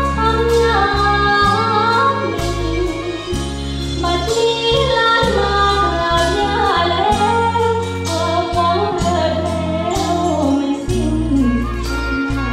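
A young woman singing a Thai luk thung song into a microphone over a backing track with a bass line and a regular beat.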